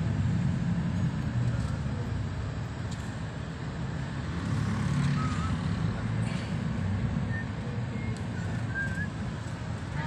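Steady low rumble of engine and road noise inside a moving passenger vehicle's cabin.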